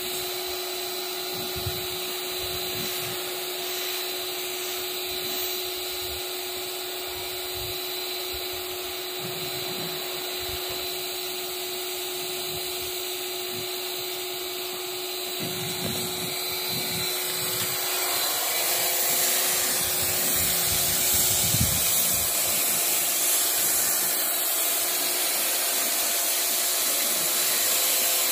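Bosch EasyAquatak 120 electric pressure washer running with a steady motor hum while its lance sprays a hissing jet of water onto a car. The sound grows louder and hissier about two-thirds of the way through.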